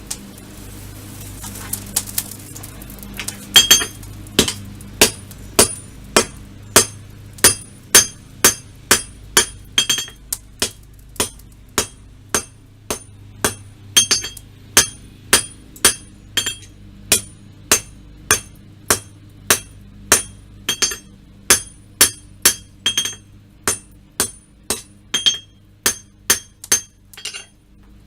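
Hand hammer striking hot steel on an anvil in a steady rhythm of about two blows a second, each blow with a bright ringing ping, as the knife blank is rough-forged. A low steady hum runs underneath.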